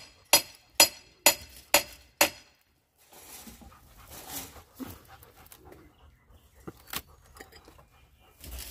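Hammer driving nails into wood, sharp ringing blows about two a second; five blows, then it stops a little over two seconds in. After that comes a few seconds of quieter, breathy hiss with a few light knocks.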